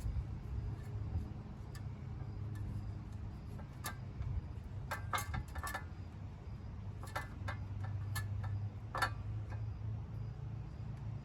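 Scattered light metallic clicks and taps of hand tools and parts being handled while a small engine's shroud and wiring are taken apart, a few single clicks and a quick cluster about halfway through, over a steady low hum.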